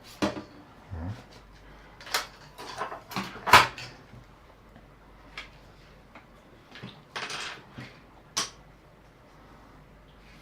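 Parts of an Amiga 500 keyboard being handled on a work surface: a series of light knocks and clicks, the loudest about three and a half seconds in, with a short rustle just past seven seconds.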